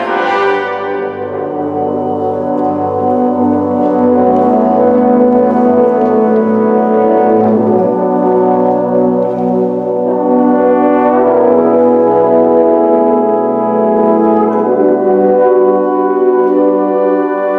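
Symphonic wind band playing slow, sustained chords, with the brass to the fore; the chords swell and ebb rather than move in a rhythm.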